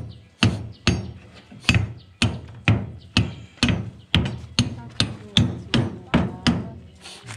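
Steady series of hammer blows, about two a second, on a concrete hume pipe mould. Each blow rings briefly and low. The blows stop about a second before the end.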